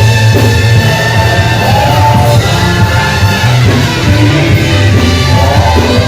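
Live gospel worship band playing: sustained chords over a heavy, steady bass.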